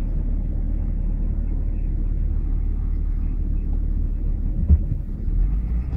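Steady low rumble of a car's engine and tyres, heard from inside the cabin while driving, with one short dull thump late on.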